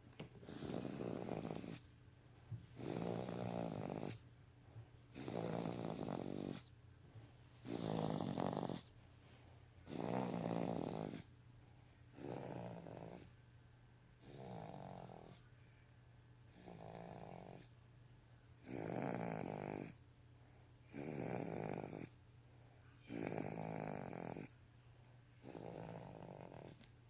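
Snoring in a slow, regular rhythm: about a dozen snores, one every two seconds or so, each lasting about a second, some louder and some softer.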